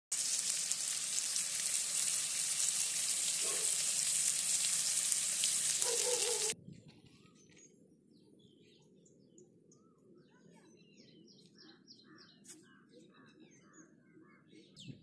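Masala-coated seer fish steak frying in hot oil in a pan, a loud steady sizzle that cuts off suddenly about six and a half seconds in. After it, birds chirp faintly outdoors.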